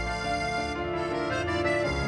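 Background music: held, sustained chords that change about every two seconds.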